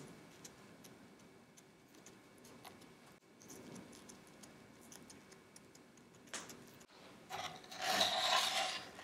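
A wooden spatula scraping as it slides under a baked chocolate chip cookie on a lined baking tray, a rough rasping noise about seven to nine seconds in and the loudest sound. Before it, faint small crackles and ticks as a gloved finger presses the cookie's crust.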